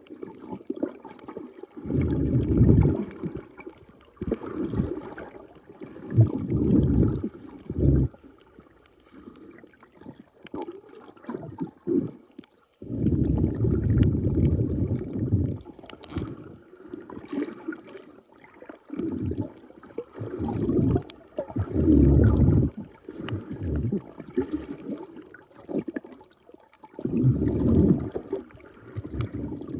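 Muffled underwater water movement against the phone: low sloshing and rumbling that comes in irregular surges of a second or two, with quieter gaps between.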